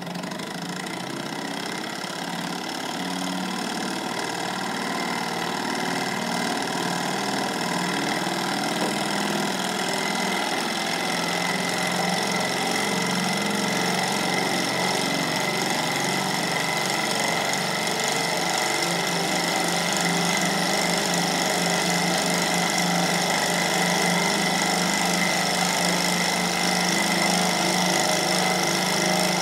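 Small twin-cylinder Stirling engine running after being flicked into motion by hand, a steady fast mechanical clatter of its pistons, linkage and flywheel that starts suddenly and grows gradually louder. It is driving a small generator that lights an LED bulb.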